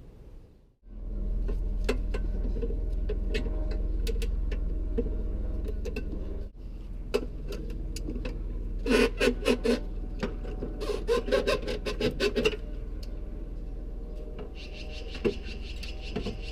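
Metal parts being handled under the hood of a car, with scattered clicks, knocks and rattles over a steady low hum, and two quick flurries of clattering clicks in the middle.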